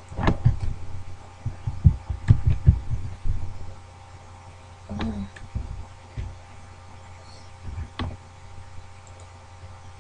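Computer keyboard typing picked up as a quick run of dull low thumps and clicks over the first few seconds, then a few single clicks, over a steady mains hum.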